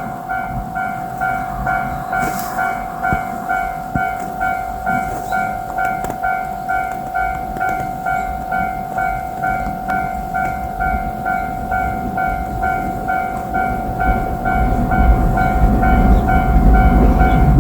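Japanese level-crossing warning alarm ringing its electronic 'kan-kan' about twice a second over a steady tone. From about 14 seconds in, the rumble of an approaching JR Shikoku 2700 series diesel limited-express railcar grows louder.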